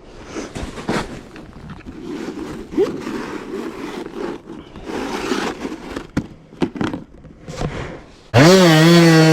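Irregular scraping, knocking and rustling for about eight seconds. Then the KTM 200 SX single-cylinder two-stroke engine cuts in abruptly, loud and steady, near the end.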